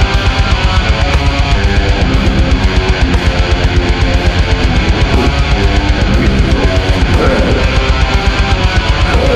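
Death-doom metal band recording: heavily distorted electric guitars over a drum kit keeping a fast, even beat.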